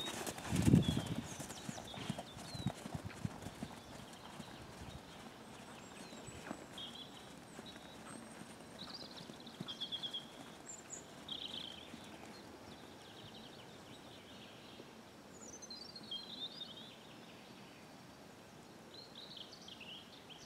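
Horse's hooves thudding on a sand arena close by, with a loud low thump about a second in, fading after a few seconds. Birds then chirp on and off over a quiet background.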